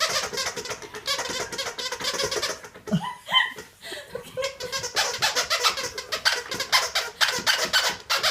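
Dog's rubber squeaky toy squeaked over and over in rapid succession as a terrier bites it, with a brief pause about three seconds in.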